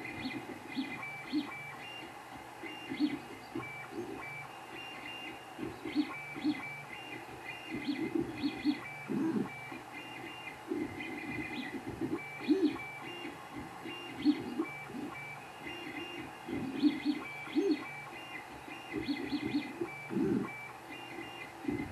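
Creality 3D printer running a print: its stepper motors give short pitched tones and buzzes that change with every move of the head and bed, over a steady hum.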